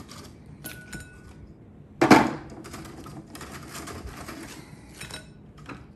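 Dried beef jerky pieces being picked off a plastic food dehydrator tray and dropped into a bowl: light clicks and rattles, with one louder knock about two seconds in.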